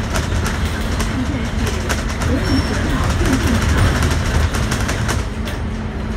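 Cabin ride noise of a Scania K310UD double-decker bus under way: a steady low rumble from its Scania DC9 engine and drivetrain, with frequent clicks and rattles from the body and fittings.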